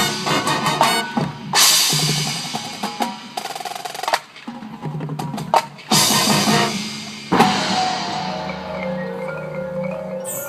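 Marching band playing a percussion-heavy passage: drums and mallet percussion, with three loud accented hits, about a second and a half in and again around six and seven seconds, each ringing out; held notes take over near the end.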